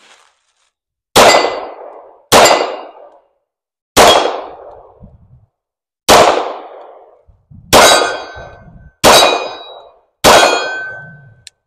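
Seven single shots from a Staccato P 2011 9mm semi-automatic pistol, fired at an uneven pace one to two seconds apart, each dying away over about a second.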